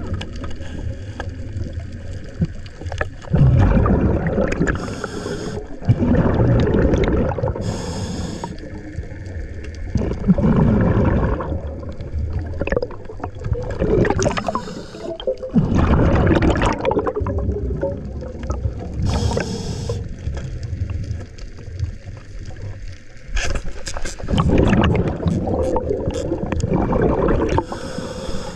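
Scuba diver breathing through a regulator underwater, heard through the camera's housing. Each inhale is a short hiss, followed by a longer rumbling gurgle of exhaled bubbles, over several breaths.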